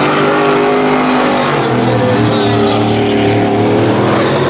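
Pickup truck V8 engines running hard at high revs as the trucks race around the track. The engine note shifts briefly about two seconds in, then holds steady.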